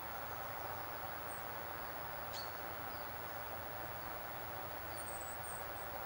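Steady outdoor background noise with a few faint, high bird chirps scattered through it, one sharp click about two and a half seconds in, and a short run of higher chirps near the end.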